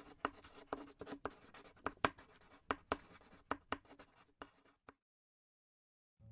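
Handwriting sound effect: a quick, irregular run of scratching taps, as of a pen writing, that stops about five seconds in.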